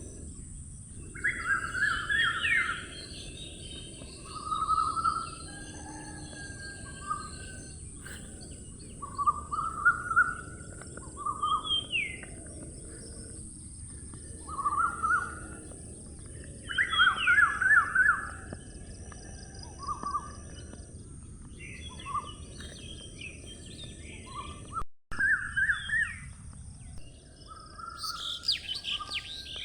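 Songbirds singing, repeated short phrases of quick chirps about a second long every couple of seconds, over a steady high-pitched hiss. Near the end, faster and higher chirping comes in.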